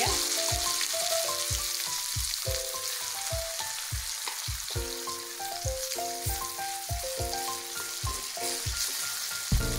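Chilli-and-shallot-coated bitter gourd pieces sizzling steadily as they fry in hot oil, with background music with a steady beat playing under it.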